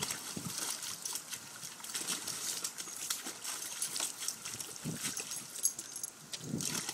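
Water splashing and sloshing irregularly as a young blue heeler paws and stomps around in a plastic kiddie pool.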